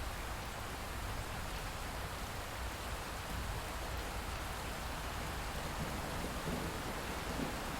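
Steady light rain falling and dripping after a thunderstorm. A low rumble of thunder begins to build near the end.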